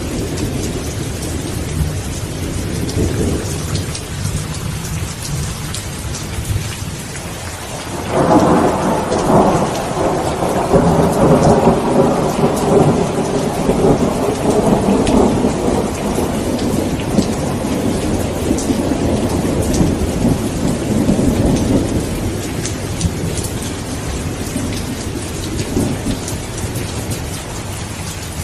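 Steady rain with rolling thunder: a low rumble in the first seconds, then a louder clap about eight seconds in that rumbles on and slowly fades.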